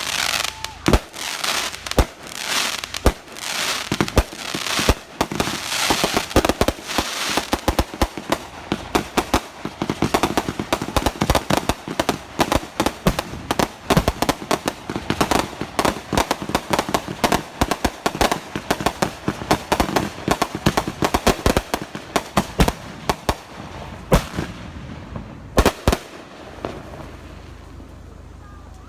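Consumer fireworks going off in rapid succession: many sharp bangs mixed with crackling, coming fastest in the middle. It ends with a few last loud bangs a few seconds before the end, then dies away.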